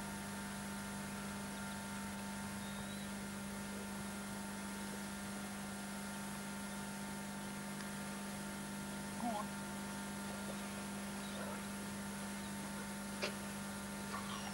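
Steady electrical hum with constant hiss from the recording, with a faint brief sound about nine seconds in and a sharp click near the end.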